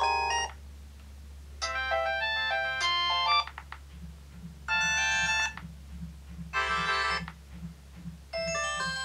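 MobiWire Pictor feature phone's speaker playing its message-tone previews one after another: short electronic jingles of quick beeping notes, each a different tune, broken off after a second or two as the next tone is highlighted.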